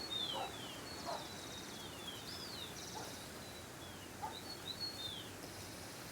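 Birds calling in the open countryside: clusters of short, high, falling chirps near the start, in the middle and again just before the end, with a few lower calls between them over a steady hiss of ambient noise.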